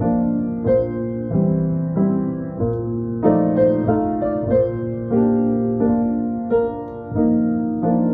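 Acoustic piano being played: a slow piece of sustained chords and melody notes over held bass notes, a new chord or note struck about every half second to a second.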